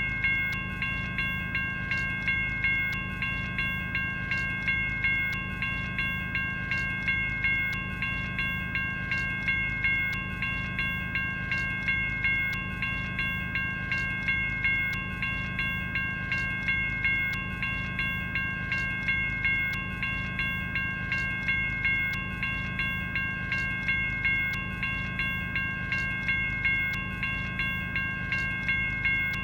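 General Signals Type 1 electronic railroad crossing bell (e-bell) ringing continuously: an even, repeating series of bell strikes, each one ringing on with several high, bright tones.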